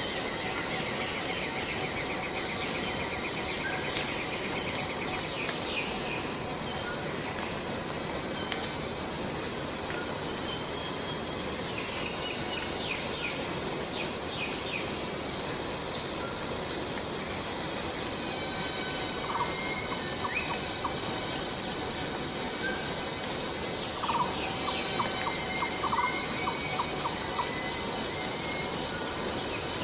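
Steady insect chorus with a constant high-pitched buzz, and a fast ticking trill in the first few seconds. Short bird calls break in again and again in the second half, in quick clusters of notes.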